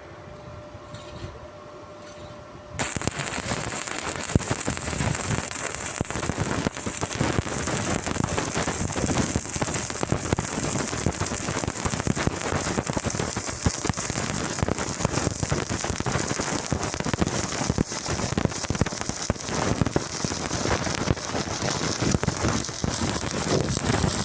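Stick welding arc struck about three seconds in and burning steadily, with a dense sizzling crackle like frying, until the arc is broken at the very end.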